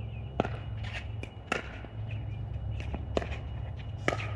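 Pickleball rally: about eight sharp pops of paddles striking the hard plastic ball and the ball bouncing on the court, irregularly spaced, the loudest about half a second in, a second and a half in, and near the end. A steady low rumble runs underneath.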